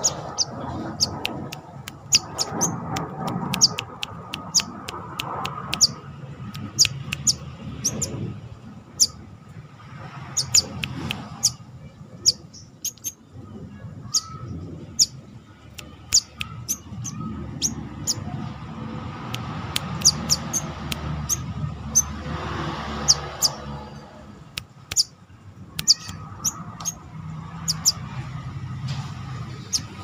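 Brown-throated sunbird giving short, sharp, high chirps in quick irregular runs, over a low background rumble.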